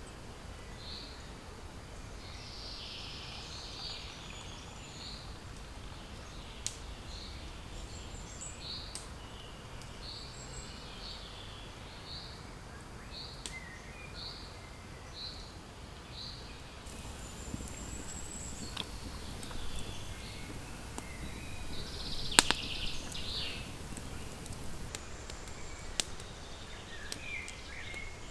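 A small bird repeating a single short high note, a bit more than once a second, for about the first half. Scattered light clicks and one sharp knock come after it, over quiet outdoor background.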